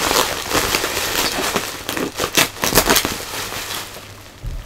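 Plastic bubble wrap crinkling and crackling as it is handled and pulled apart, with many sharp crackles that are densest in the middle and die down near the end.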